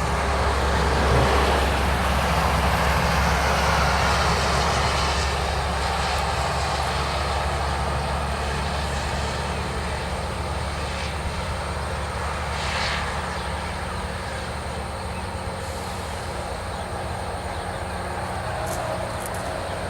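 LORAM RG308 rail grinder at work on the track: a steady low diesel drone under a broad rushing grinding noise, slowly getting quieter.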